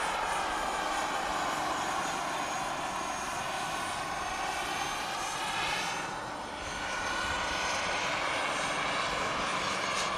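Large-scale RC Bell JetRanger turbine helicopters flying overhead, their turbines whining with a pitch that drifts up and down as they move. The sound dips briefly about six seconds in.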